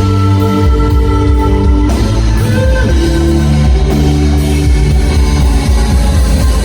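Live rock band playing an instrumental passage: electric guitars holding sustained chords over bass and drum kit, loud and steady, with no vocals.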